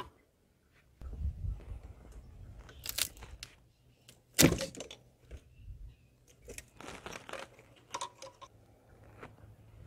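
Plastic clicks and cracks as the EGR valve's wiring connector and harness clips are worked loose by hand and with pliers, with two sharper snaps about three and four and a half seconds in.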